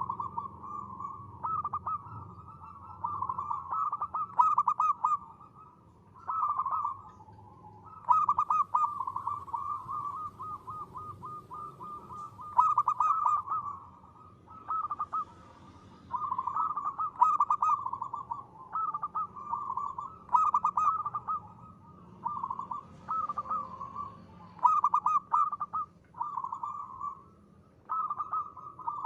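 Zebra dove (perkutut) cooing over and over in rapid trilled phrases of one to two seconds each, separated by short pauses, in the crisp, clear 'ngristal' voice style.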